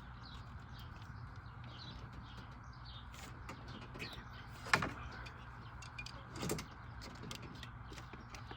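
A sharp click about halfway through and a softer knock a couple of seconds later, from parts or tools being handled during hand work on a truck's engine, over a steady low hum with faint bird chirps.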